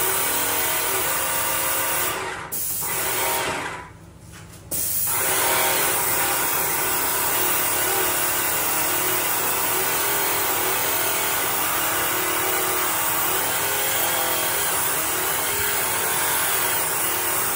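Airless paint sprayer spraying a ceiling: a steady hiss of paint from the spray tip with the sprayer's pump running. It cuts out briefly twice in the first five seconds as the trigger is let go, then runs on steadily.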